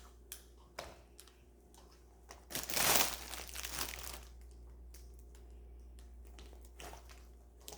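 Crinkling and small clicks while slime charms are handled, with one louder crinkle lasting about a second and a half around three seconds in.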